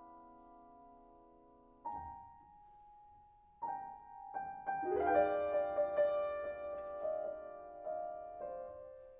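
Solo piano playing slowly: a held chord dies away, fresh chords are struck about two and four seconds in, then a busier stretch of notes settles onto a held note that fades near the end.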